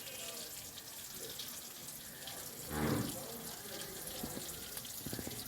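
Marinated tuna pieces sizzling in hot coconut oil, a steady crackling hiss. A brief louder sound rises over it about three seconds in.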